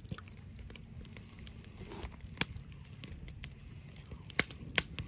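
Crunching and chewing of a charred, salt-dried capelin bitten whole, bones and all, with a few sharp crunches, the loudest about two and a half seconds in and two more past four seconds.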